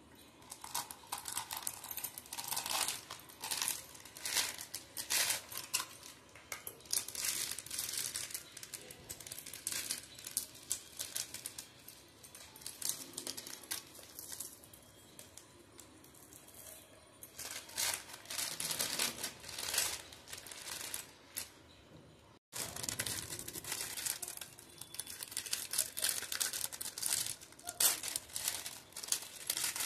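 Plastic and foil sweet wrappers crinkling and rustling in bursts as they are unwrapped by hand, with small tearing sounds. The sound cuts out for an instant about two-thirds of the way through.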